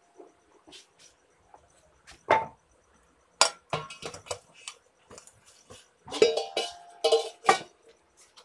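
Stainless steel pots, pans and plates clanking against one another as a saucepan is pulled out of a basket of utensils. The clanks and clinks come at irregular moments, and some ring briefly.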